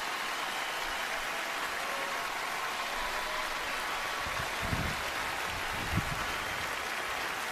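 Steady rushing hiss of wind on the camera's microphone, with two low bumps a little over a second apart past the middle.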